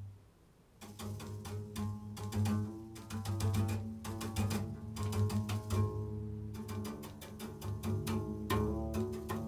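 Acoustic double bass played with a bow in an improvised passage, coming in about a second in: a sustained low note under many short, repeated bow strokes, with higher notes shifting above it.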